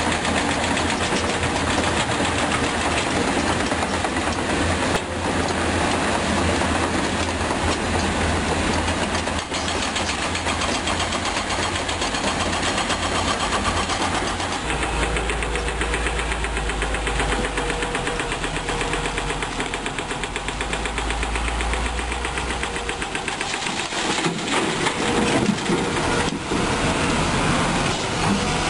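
Diesel engines of hydraulic excavators and a dump truck running steadily at a worksite, a heavy low drone that shifts for a while midway. Near the end come several sharp knocks and clatters.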